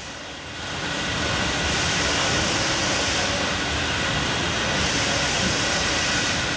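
Bottle depalletiser and line machinery running with a steady mechanical noise. A high hiss swells and fades every second or two over a faint steady whine, and the level rises over the first second or so.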